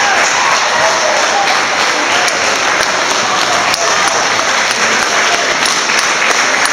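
Audience applauding steadily, with a few voices audible through the clapping.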